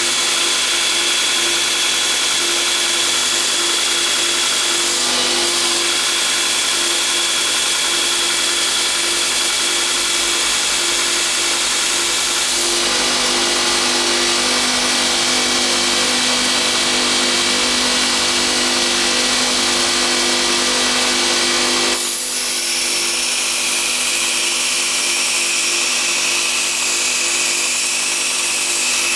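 Homemade belt grinder running steadily, its electric motor humming under a loud hiss from the abrasive belt. The sound shifts abruptly about 13 seconds in and again about 22 seconds in.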